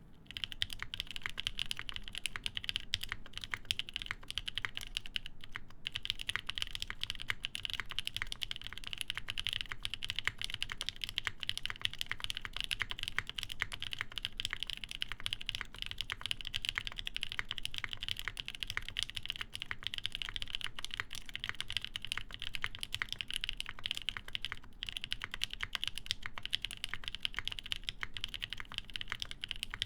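Continuous fast typing on an Ion Jubi mechanical keyboard, plateless and PCB-mounted, with lubed NK Nolives switches and GMK Dolch keycaps: dense keystroke clacks that begin about half a second in, with a brief pause near six seconds.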